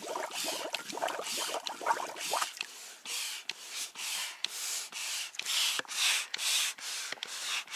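Manual air pump being worked in steady strokes, each stroke pushing a short puff of air out through a hose, about two or three puffs a second, starting a few seconds in.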